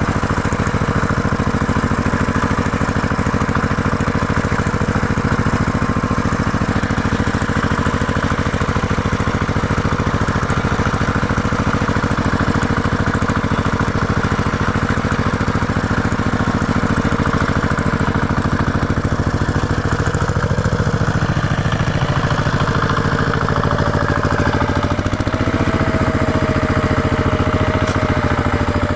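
Diesel engine of a piece of heavy construction equipment running steadily. About three quarters of the way through, a new whining tone joins it.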